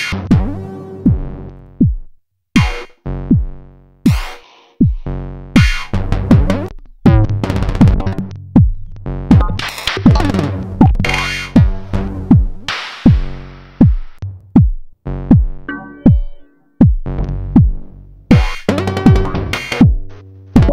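Eurorack modular synthesizer playing a glitchy electronic beat, with Mutable Instruments Plaits making stuttering, rapidly retriggered clicks and bursts and Mutable Instruments Elements giving rhythmic support. Pitch-dropping kick drums run through it, and a wash of noise comes in about 13 seconds in.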